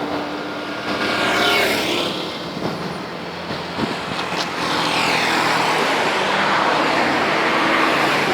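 Road traffic: motor vehicles passing by. One passes about a second and a half in with its pitch falling, and another grows louder from about five seconds in.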